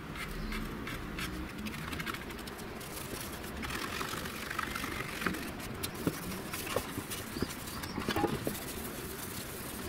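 A solvent-soaked rag scrubbing over the primed steel spare-wheel well panel to degrease it, an irregular rubbing and scuffing sound. Small ticks and a few sharper knocks come as the panel is handled and shifted on the wooden bench, more of them in the second half.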